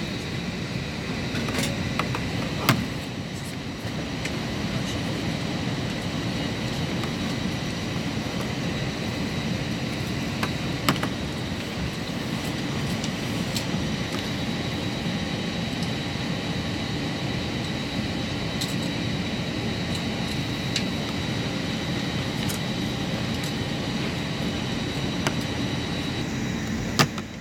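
Steady airliner cabin noise on the ground: a low hum of air conditioning and aircraft systems with a thin, steady high whine over it. A few sharp clicks sound now and then.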